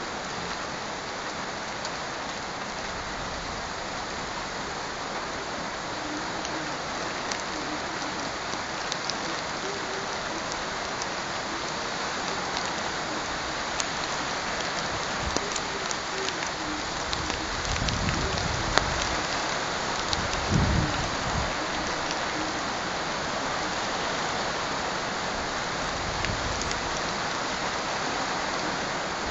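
Steady rain falling, an even hiss with scattered sharp ticks of nearby drops. Short low rumbles come about two-thirds of the way through.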